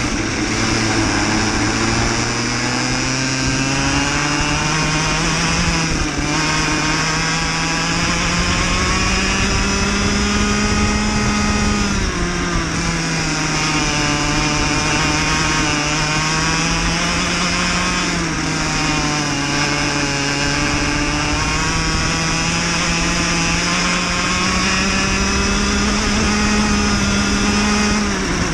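A cadet racing kart's small engine is heard close up from on board, running at speed through a lap. Its pitch climbs slowly along the straights and falls off quickly into each corner, several times over.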